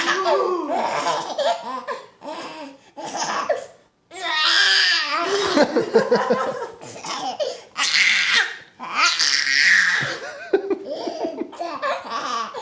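A baby laughing loudly and squealing in repeated bursts, with short breaks between them.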